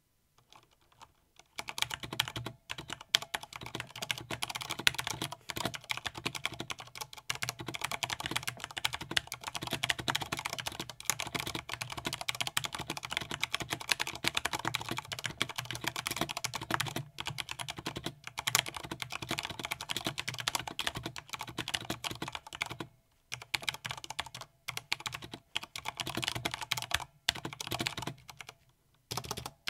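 Corsair K95 RGB Platinum XT mechanical gaming keyboard being typed on fast with both hands: a dense, continuous clatter of key presses that begins about a second and a half in, with a couple of brief pauses near the end.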